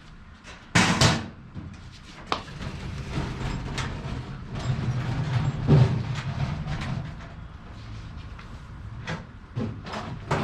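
A heavy load being heaved up onto a workbench: a loud bang about a second in, then several seconds of low rumbling and scraping against the bench, with scattered knocks.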